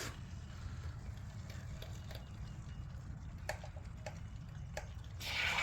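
Faint scattered ticks over a low steady rumble, then about five seconds in a steady hiss starts as the flat tire is being filled from a pressurised Fix-A-Flat sealant can.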